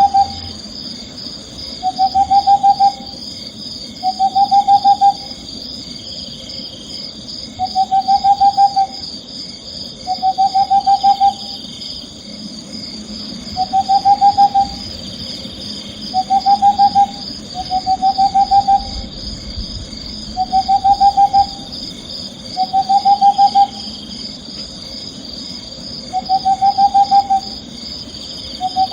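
Owl calling again and again, every two to three seconds: each call is a trill of rapid pulses about a second long, rising slightly. Under it runs a steady, high-pitched chirring drone.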